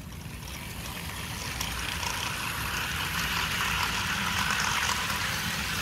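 HO-scale model diesel locomotives running on DC: the electric motors and gearing whir and the wheels roll on sectional track. It grows steadily louder as the train gets under way.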